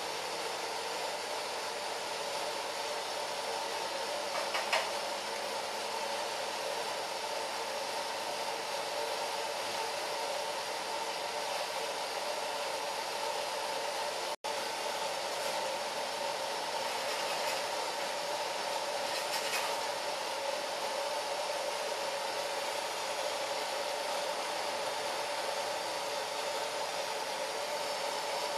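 Facial steamer running with a steady hiss and hum, cutting out for an instant about halfway through.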